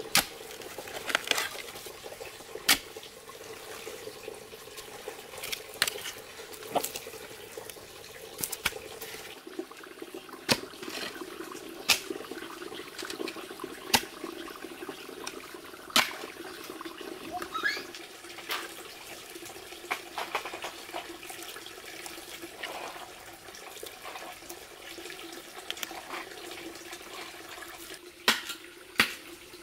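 Water running or splashing, with sharp knocks or clicks every second or two over a steady low hum.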